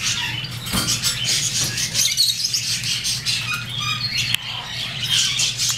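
African grey parrot chirping in many short, high bursts, with a couple of sharp clicks.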